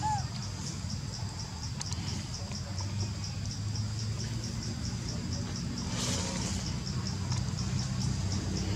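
An insect chirping steadily in high, evenly spaced pulses, about four a second, over a low background hum. A single short squeak comes right at the start.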